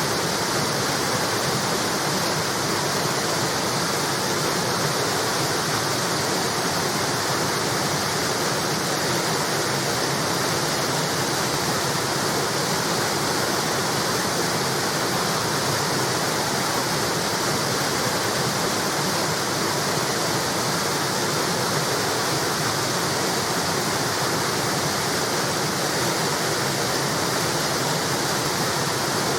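River water spilling over a small weir, a steady rushing and splashing without let-up.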